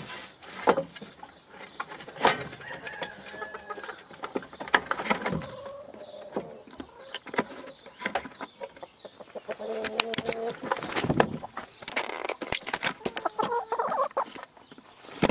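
Hens clucking in short calls as they come out through a wooden coop hatch, with sharp knocks and scratches among the calls.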